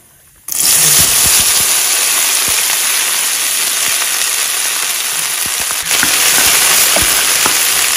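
Chopped okra hitting hot oil in a pan, bursting into a loud, steady sizzle about half a second in. A wooden spatula knocks against the pan a few times as the okra is stirred.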